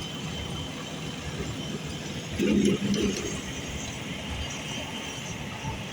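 Steady machinery noise at a building construction site, with a louder low hum swelling up for about a second a little over two seconds in.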